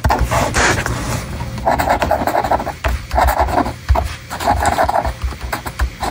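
Ballpoint pen scratching across paper as a line of words is written, in short stretches of strokes with brief pauses between them.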